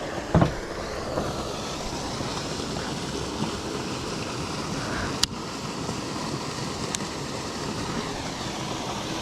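Steady rush of water pouring over a spillway. A brief knock comes near the start, and two thin sharp clicks come around the middle.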